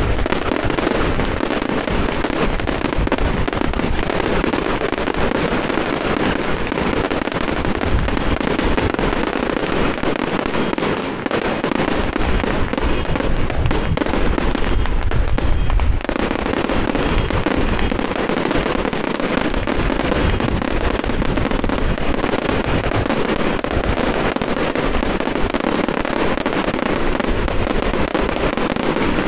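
A dense, unbroken rattle of firecracker and fireworks bangs, rapid cracks running together without a pause. It is loudest a little past the middle.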